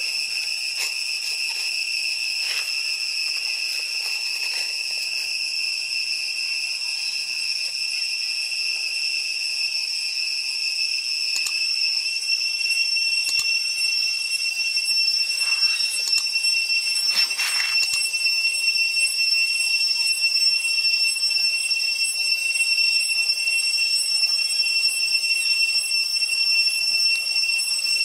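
Steady, high-pitched insect drone, unchanging in pitch and growing a little louder about halfway through, with a brief noise about two-thirds of the way in.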